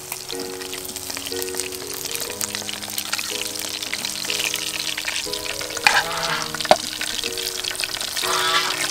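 Fish steaks sizzling and crackling as they fry in hot oil in a pan, with two sharp clicks of metal tongs against the pan about six and seven seconds in.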